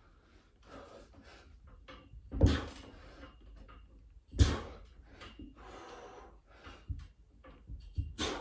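A man breathing hard through a set of pull-ups, with two loud, sharp exhales about two and a half and four and a half seconds in and another near the end, under light knocks from the freestanding pull-up station.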